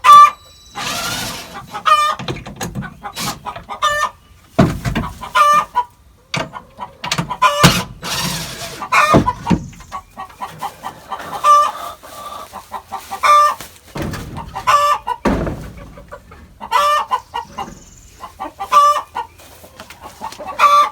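Chickens clucking and calling loudly, a call every second or two. A few sharp knocks and some rustling come in between.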